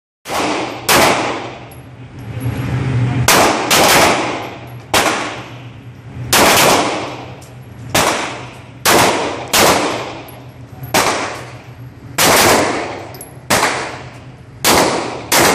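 Semi-automatic pistol fired about fifteen times at an irregular pace, some shots in quick pairs, each loud crack ringing on in the reverberant indoor range.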